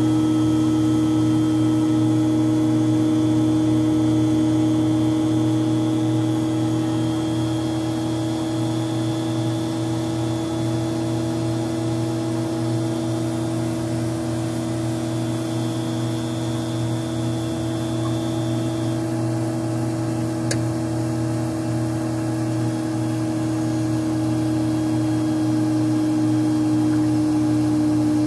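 Beckman J2-21 refrigerated centrifuge spinning its JA-20 rotor at close to 20,000 rpm: a steady hum with a clear, even whine. A faint high tone drops out about two-thirds of the way through.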